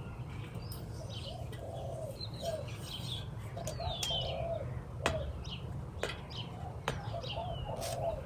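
Birds calling, with groups of low repeated cooing notes like a dove's and higher chirps, including a falling whistle near the middle. Steady wind rumble runs underneath, and there are a few sharp clicks in the second half.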